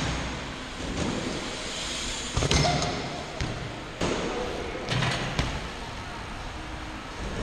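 BMX bike riding on skatepark ramps in a large hall: tyres rolling over concrete and wooden ramps, with several sharp thuds and clanks from landings and the bike hitting the ramps.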